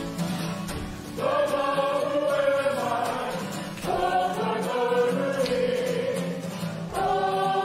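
A Māori group singing together in unison, in phrases that begin about every three seconds over a steady low drone.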